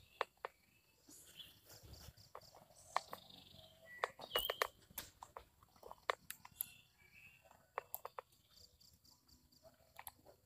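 Scattered small clicks and taps, with a few brief high chirps from birds or insects in the riverside vegetation.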